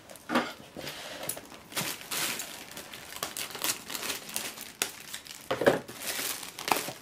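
Clear plastic packaging crinkling in irregular bursts as it is handled and lifted out of a cardboard shipping box.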